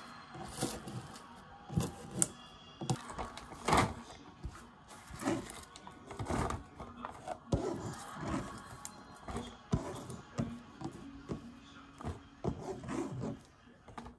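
Kitchen knife knocking on a wooden cutting board in scattered strokes, with a plastic zip-top freezer bag rustling as cut vegetables are dropped into it.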